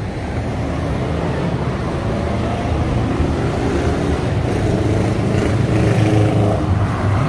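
Road traffic driving past: car, van and motorcycle engines with tyres rumbling over cobblestones. It is steady and grows a little louder toward the end.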